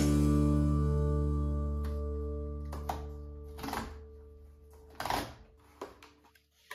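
An acoustic guitar chord in the background music rings out and fades over about three seconds. Then come a handful of short rustles and scrapes as a new cardboard box of pancake mix is handled and opened, the loudest about five seconds in.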